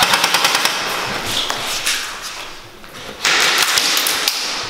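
A rapid string of sharp clicks in the first second, typical of an airsoft electric rifle firing on full auto. About three seconds in comes a loud rushing rustle of gear and movement.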